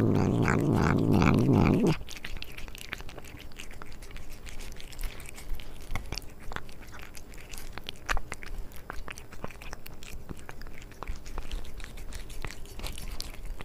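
A cat eating from a stainless steel bowl right next to a microphone: close, rapid chewing and crunching clicks. It is louder and denser for about the first two seconds, then settles into a quick, irregular run of crisp clicks.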